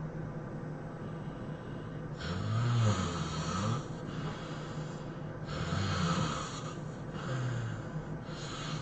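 A sleeping person snoring heavily, about four snores a second or two apart. The first, at about two seconds, is the longest and loudest. Each snore is a rough, breathy sound whose low pitch bends up and down.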